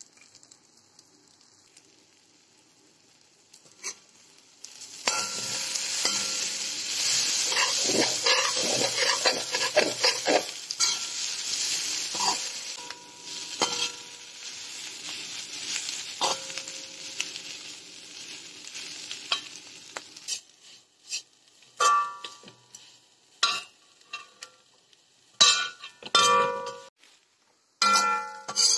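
Clam roast with onions and curry leaves frying in a metal wok: from about five seconds in, a loud sizzle mixed with the scrape and clatter of a spatula stirring. In the last several seconds the sizzle dies down and separate scrapes of the spatula against the pan ring out.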